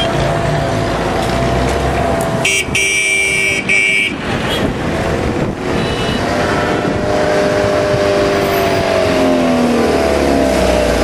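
Busy road traffic with a vehicle horn honking for about a second and a half, starting about two and a half seconds in. Later a lower pitched vehicle sound slowly falls in pitch.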